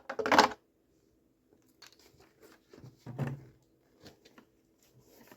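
Handling noises while detergent is added to a wet dry vacuum: a short loud rasp at the start, then scattered light clicks and rustles, with another louder rustle about three seconds in. The vacuum's motor is not running.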